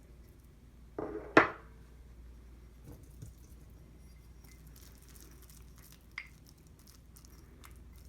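A dish or glass set down with a sharp knock about a second in, followed by a few faint small clicks.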